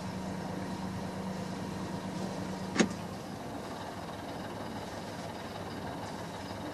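Yacht's Volvo Penta inboard diesel running steadily at low revs. A low steady hum drops out about three seconds in, at the same moment as one brief sharp sound, the loudest thing here.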